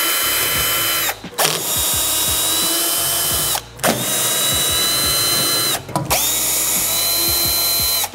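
Cordless drill-driver backing the screws out of a welder's sheet-metal side panel. It runs in four steady whirring runs, stopping briefly about a second in, near the middle and about two seconds before the end.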